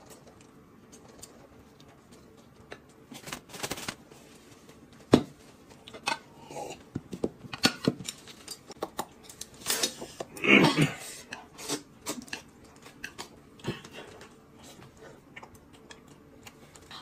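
Mealtime handling sounds: scattered clicks and knocks of brass bowls, chopsticks and glass jars on a table, with eating noises. One sharp knock a little after five seconds is the loudest.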